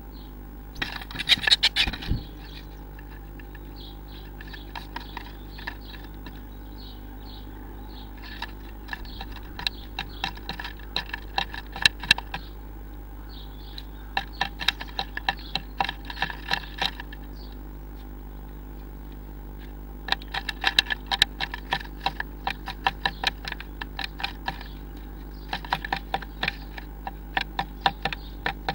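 A blue tit moving about inside a wooden nest box: irregular bursts of quick taps and scratches as it works at the wood, over a steady low hum.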